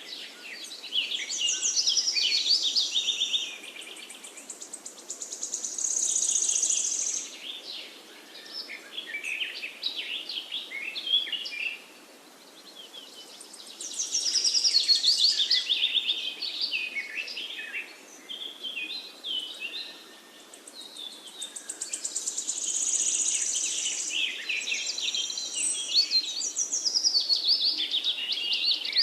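Several small songbirds chirping and singing at once, in lively overlapping bouts of rapid high chirps and trills a few seconds long, with short lulls between them. A faint steady hiss of outdoor background lies underneath.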